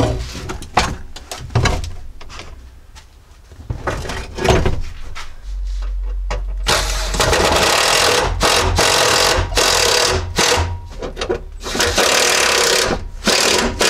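Knocks and clunks of a car seat being handled, then from about halfway in several seconds of loud scraping and rubbing as the seat frame is shifted into place on the bare metal floor pan.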